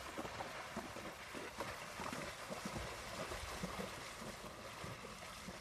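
A horse wading through shallow lake water, its legs splashing faintly under steady wind noise on the microphone.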